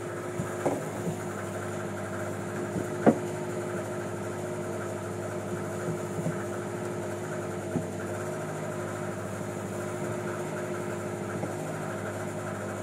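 A boat engine running steadily, a constant hum, with a few sharp knocks; the loudest knock comes about three seconds in.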